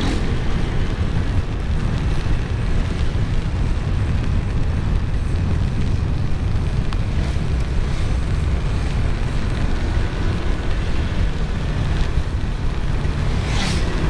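Steady rush of wind buffeting a helmet-mounted microphone on a moving motorcycle, with road noise from tyres on a wet road mixed in. A short, louder hiss comes near the end.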